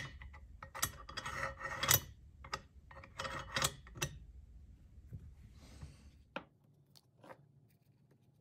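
Galil rifle bolt being worked by hand in its receiver, steel on steel: a sharp click first, then a run of clicks and rubbing as the bolt is turned and slid, trying how the freshly filed locking lug cams into its seat. Fainter light ticks follow near the end.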